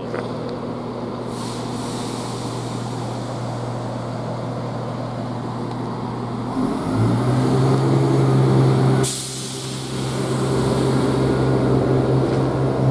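Chiltern Class 168 diesel multiple unit's underfloor diesel engines idling with a steady hum, then opening up about six and a half seconds in as the train pulls away from the platform. About nine seconds in there is a short hiss of air, and the engine note drops for a moment before it rises again.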